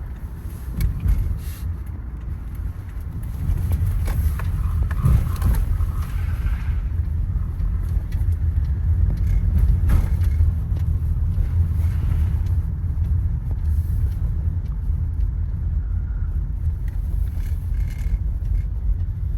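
A 2012 Toyota Sienna minivan driving, heard from inside the cabin: a steady low rumble of engine and road noise that grows louder about three and a half seconds in, with a few faint knocks.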